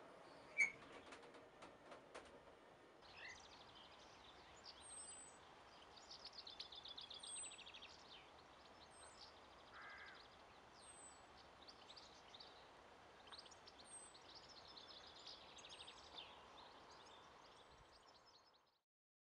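Faint songbirds singing: repeated high, thin, downslurred notes and quick rattling trills over a soft outdoor hush, fading out near the end. A few sharp clicks and ticks come in the first three seconds, before the birdsong starts.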